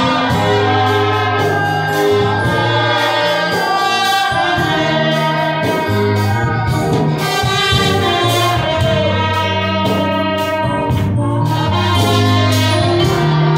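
Gospel music: a choir singing over instruments with a steady beat.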